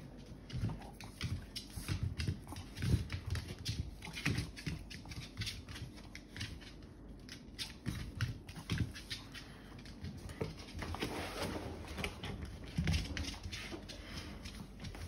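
A small dog's claws clicking and paws thumping on a wood-effect floor as it jumps and scampers about, in many quick irregular taps.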